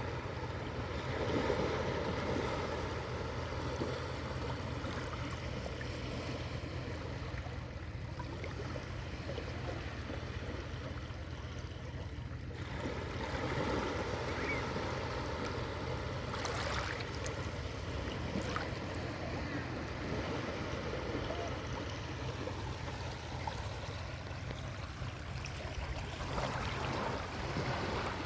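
Sea waves washing onto the shore in slow swells over a steady low rumble, with faint far-off voices of people playing in the water.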